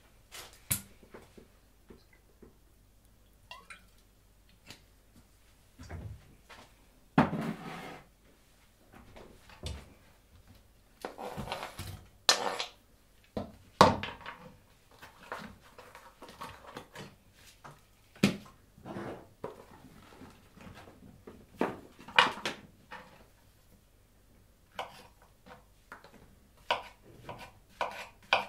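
Kitchen prep handling sounds: a frying pan on a glass induction hob, chopped onion going into the pan, and utensils and a cutting board being handled. The sound is a string of separate clicks, knocks and clatters a second or two apart, with a few longer scrapes.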